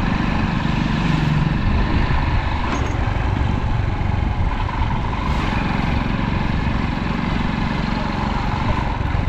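Road traffic with vehicle engines running steadily, a constant rumble.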